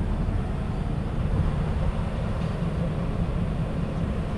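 Wind buffeting the microphone, giving a steady, uneven low rumble.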